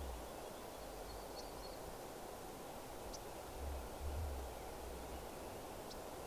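Quiet outdoor background: a steady hiss with a low rumble about four seconds in, and a few brief, high bird chirps.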